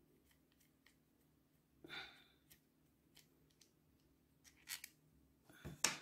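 Faint, scattered clicks and scrapes of small metal parts as a small spinning reel is taken apart by hand and its rotor nut is unscrewed, with the loudest sharp clatter just before the end.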